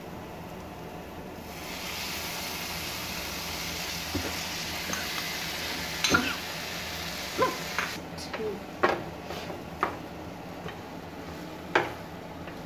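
Grated mango going into hot oil in a wok with fried peanuts and tempering: a sizzling hiss starts about a second and a half in and dies down around eight seconds in. Through the second half come sharp clicks and knocks of a spoon and a wooden spatula against the bowl and pan as it is stirred.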